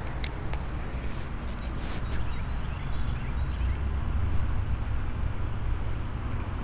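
Steady low rumble of wind on the microphone by the pond, with a sharp click from the spinning reel just after the start and a fainter click about two seconds in.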